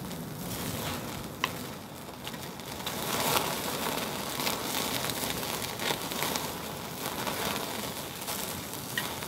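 Steak fat dripping onto the coals of a small tabletop charcoal grill, sizzling and crackling as flames flare under the meat, with a few sharp pops.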